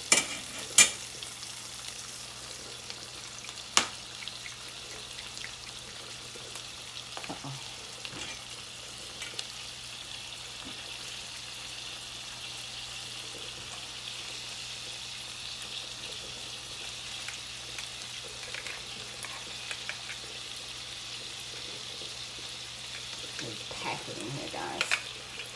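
Onions, peppers and tomatoes sizzling steadily in oil in a stainless steel sauté pan. A metal spoon clinks sharply against the pan a few times in the first four seconds, and there are more clinks near the end.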